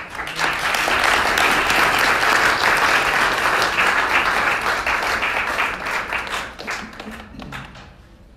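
Audience applauding, a dense round of clapping that holds strong for about six seconds, then thins out and dies away.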